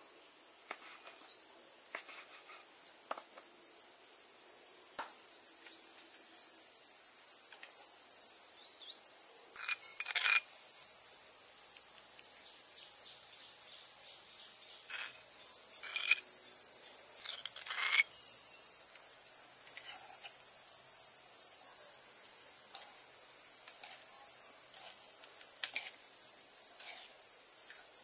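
Steady high-pitched chirring of insects, stepping up in level about five seconds in, with scattered clicks and knocks of kitchen utensils: a knife tapping on a wooden cutting board in the first few seconds, then a few sharper clinks and clatters of utensils against a bowl.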